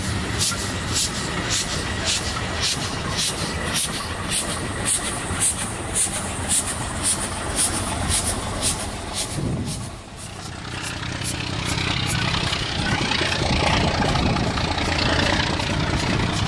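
Czechoslovak steam tank locomotive puffing at a steady beat, about two exhaust beats a second, over the rumble of the train as it runs away. About ten seconds in this breaks off and a louder rushing noise of the steam train drawing near builds up.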